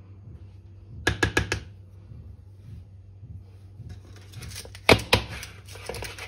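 Metal springform cake pan full of batter knocked against the tabletop to settle the batter: a quick run of about five sharp knocks about a second in, and a few more near the end.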